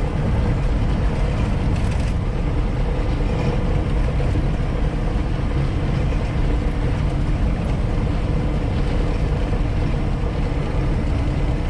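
Steady engine and road noise heard from inside a moving semi-truck cab, with the dashboard rattling loudly.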